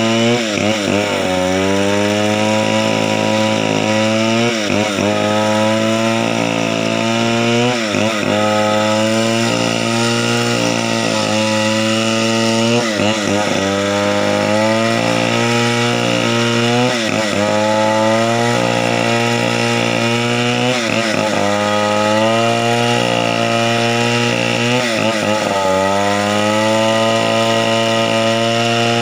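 Chainsaw engine running steadily, its pitch dipping briefly and recovering every three to four seconds.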